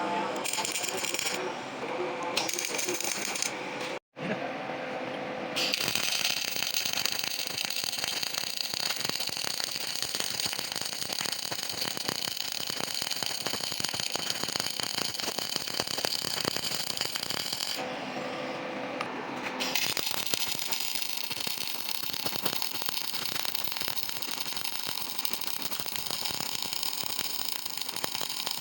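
CO2 (MIG) welding arc crackling and sputtering steadily, with a short break in the arc about two-thirds of the way through.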